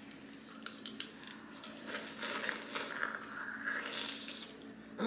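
Cooked shellfish being cracked and picked apart by hand, fingers and long nails working at the shell: a run of small clicks, cracks and crunches, then a bite into the meat.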